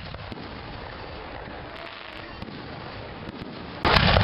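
Fireworks popping in the background, then a little before the end a sudden, much louder, dense crackling starts as a close firework throws out crackling sparks.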